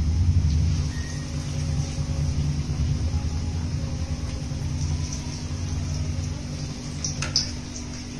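Urad dal vadas frying in oil on a gas stove: a steady low rumble with a faint sizzle, easing slowly, and a few light clicks near the end.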